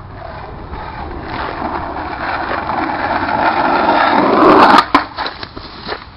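Skateboard wheels rolling on rough asphalt, growing steadily louder as the board comes closer, then cutting off suddenly just before five seconds in. A few sharp knocks and thuds follow as the rider falls.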